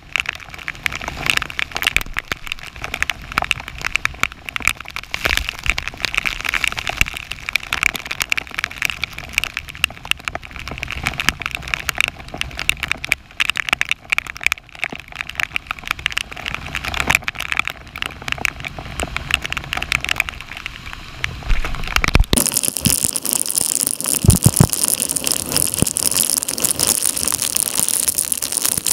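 Torrential thunderstorm rain pelting the river surface and the kayak, a dense crackle of countless drop strikes. About 22 seconds in, the sound changes abruptly to a louder, steady hiss.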